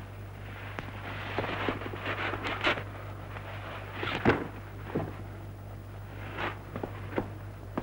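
Handling noises of a body being moved on a table: a few scuffs and rustles, one sharp knock near the middle and scattered small clicks, over a steady low hum.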